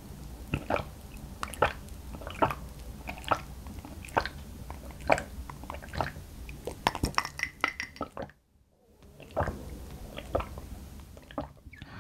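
Gulping iced barley tea from a glass: a steady run of swallows a little under one a second, a brief pause about eight seconds in, then a few more swallows.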